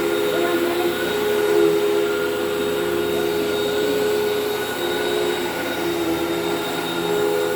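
Hoover WindTunnel bagless upright vacuum cleaner running steadily, a motor whine at a constant pitch over the rush of air.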